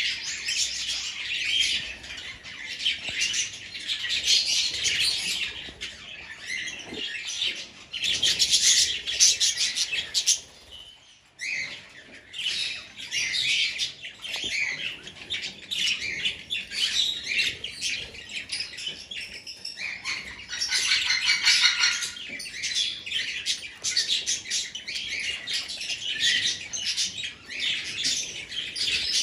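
A flock of budgerigars chattering: many rapid, overlapping chirps and warbles, with a brief lull about eleven seconds in.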